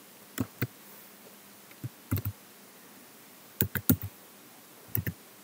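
Slow typing on a computer keyboard: about ten separate key clicks, in small groups of two or three with pauses between them.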